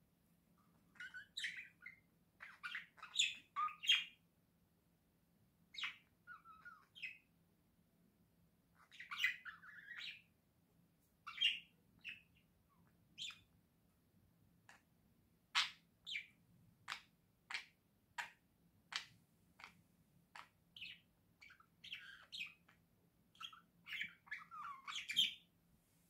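Budgerigars chirping and warbling in short bursts, with a run of short sharp chirps at about two a second in the middle.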